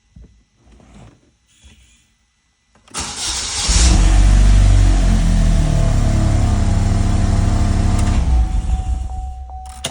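A few faint clicks, then about three seconds in a Saturn Sky's four-cylinder engine cranks briefly and catches. It runs at a fast idle for several seconds, is switched off near the end and winds down. The engine now starts and runs after being cured of a no-crank, no-start fault.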